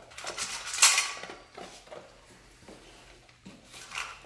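Dog eating dry kibble from a stainless steel bowl: kibble rattling and the metal bowl clinking. The clatter is loudest about a second in, eases off in the middle, and picks up again near the end.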